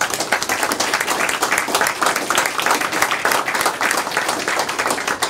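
A small group of people applauding, many hands clapping quickly and overlapping.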